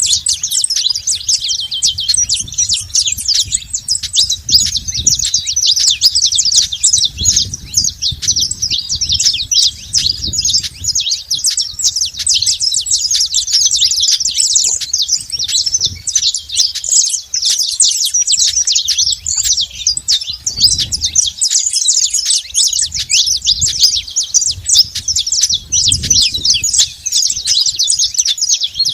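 Saffron finches chirping in a dense, continuous chatter of rapid high notes, with low muffled rumbles underneath.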